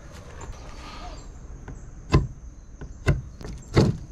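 Three sharp knocks on the wooden floor framing, about a second apart.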